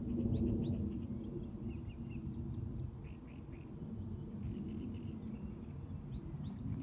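Small birds calling in short repeated notes, with a few quick upward chirps near the start and near the end, over a steady low rumble of wind on the microphone.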